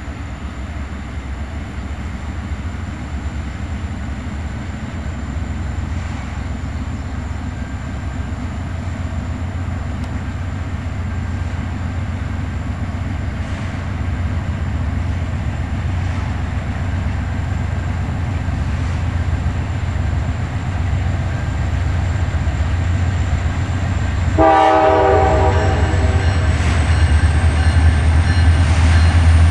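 Freight train's diesel locomotives rumbling as they approach, growing steadily louder, with one short blast of the locomotive horn about 25 seconds in.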